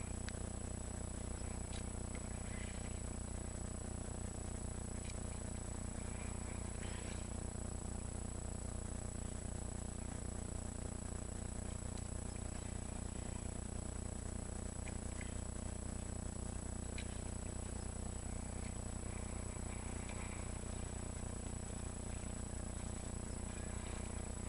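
Steady electrical hum with a constant high-pitched whine, the recording camera's own noise, with a few faint brief clicks.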